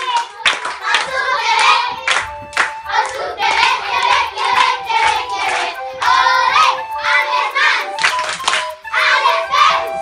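A group of children singing and clapping their hands along with a song playing, the claps sharp and frequent over the voices.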